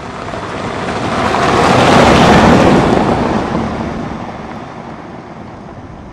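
A vehicle driving past over the dry lakebed. Its noise swells to a peak about two seconds in and then fades away.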